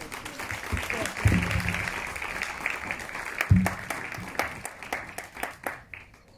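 Audience applauding: many hands clapping together, thinning out and stopping about six seconds in, with two dull low thumps during the clapping.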